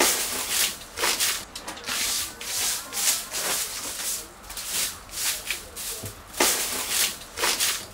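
Repeated brisk rubbing strokes, an uneven series of hissing scrapes coming about one or two a second.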